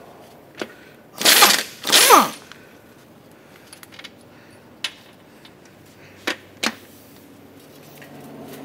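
Pneumatic impact wrench run in two short bursts about a second in, loosening the 15/16 bolts on top of a street-sweeper curb broom segment; the second burst ends with a falling whine as the air motor spins down. A few sharp metallic clicks follow.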